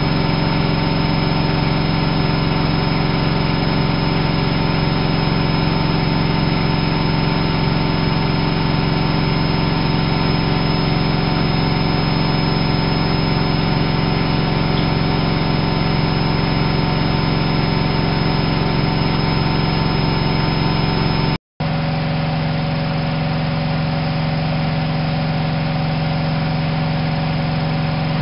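Whirlpool AWO 5346 front-loading washing machine running at a steady speed, its motor giving a constant hum with a few steady tones. About three-quarters of the way through, the sound cuts out for a split second, then carries on slightly quieter.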